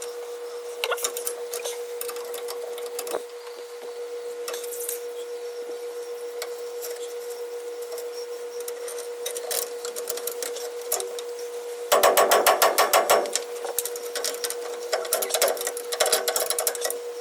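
Metal hand tools clicking and tapping on a truck's rear differential as the carrier is worked loose, with a dense rapid rattle of clicks about twelve seconds in and more clicks near the end, over a steady hum.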